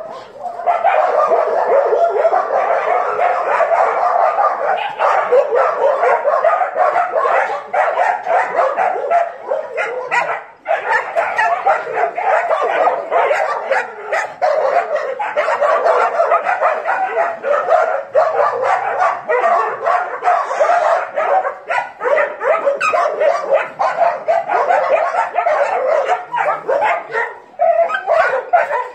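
A pack of dogs barking and yipping over one another in a continuous loud din. It breaks out just after the start and has only a brief lull about ten seconds in.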